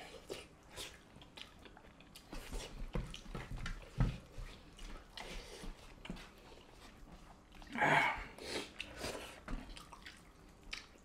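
Close-up eating sounds: wet chewing and lip-smacking with the squish of fingers mixing rice and curry on a plate, as two people eat by hand. A louder mouth noise comes about eight seconds in, and a sharp click about four seconds in.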